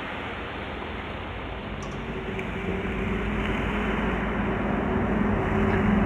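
Dark space ambient music: a steady rushing noise wash, with low sustained drone tones swelling in about two seconds in as the whole grows louder.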